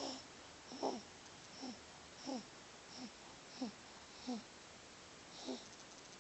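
Quiet, squeaky snoring: a run of short whistling notes, each falling in pitch with a breathy hiss, one about every two-thirds of a second with a longer gap near the end.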